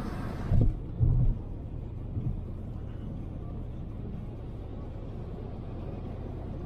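Toyota RAV4 driving on a snowy highway: a steady low road and engine rumble. A hiss filling the high range stops abruptly about half a second in, and a few dull thumps come in the first couple of seconds.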